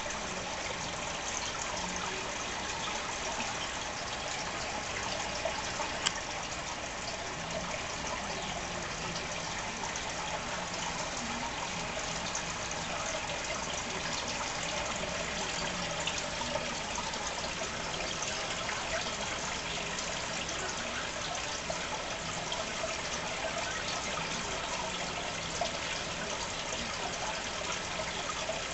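Steady trickling and splashing of water in a home fish tank, with one sharp click about six seconds in.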